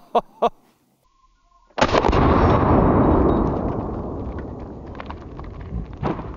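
A few sharp clicks, then about two seconds in a single loud 12-gauge slug shot from a Panzer BP-12 semi-automatic bullpup shotgun, its blast rumbling on and dying away slowly over several seconds.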